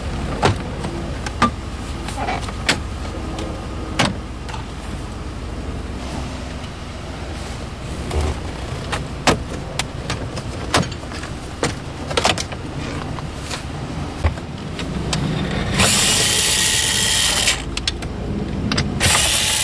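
Scattered clicks and knocks of tools and plastic trim being handled inside a pickup cab, with two steady electric-motor whirs of about two seconds each near the end, typical of a power driver or a power seat.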